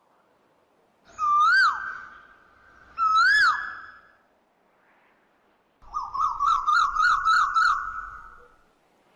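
Clear, pitched whistling chirps: two short whistles that rise and then fall, about two seconds apart, followed by a warbling trill of about five wobbles a second lasting roughly two seconds.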